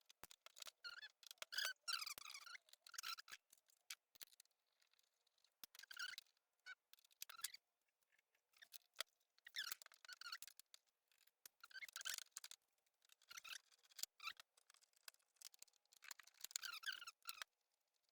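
A screwdriver undoing the screws of a Cabin 1000A slide projector's casing, working a screw in short, faint bouts of about a second with pauses between.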